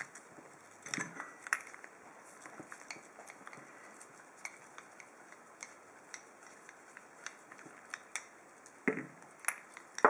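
Scattered small metal clicks and clinks as a heavy steel padlock body and its loose parts are handled and turned over, with louder knocks about a second in and near the end.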